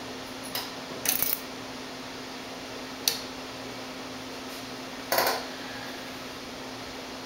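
Sharp metallic clicks and a brief jingle as the car's ignition is keyed on: a small click, then a short rattling cluster about a second in, a single sharp click around three seconds and another short clinking burst just after five seconds. A steady low hum runs underneath.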